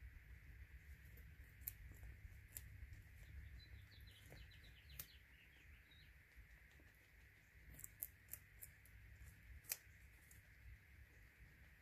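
Guinea pigs crunching dry food pellets: faint, scattered sharp crunches, bunched more closely near the end. About four seconds in there is a quick run of faint high chirps.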